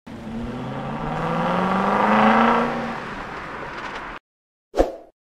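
Car engine revving as a logo sound effect: the pitch climbs for about two seconds, then eases back and holds before cutting off suddenly about four seconds in. A short thump follows near the end.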